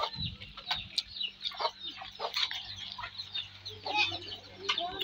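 Chickens clucking, with many short high chirps scattered throughout and a few sharp clinks of spoons on plates, over a faint low steady hum.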